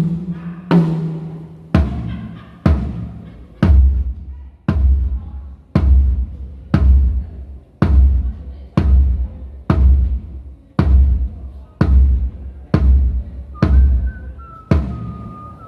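Drum kit being checked one drum at a time: a tuned tom hit twice at the start, then the bass drum struck on its own about once a second, each a deep thud.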